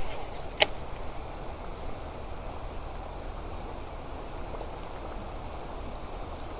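Quiet river ambience from a kayak: a steady soft rush of moving water with a faint, steady high-pitched whine above it, and one sharp click about half a second in.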